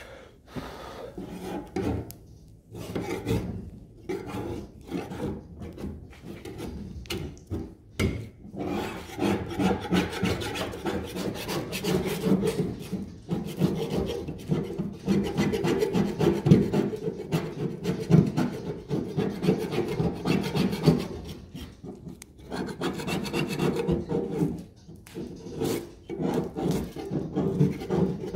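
Heat-softened body filler being scraped and dug out of a steel car door panel: quick, repeated rasping scrapes, with a few short pauses.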